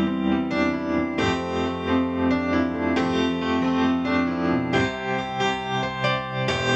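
Freshly restored Yamaha CP-80 electric grand piano played with both hands: sustained chords, a new one struck every second or two.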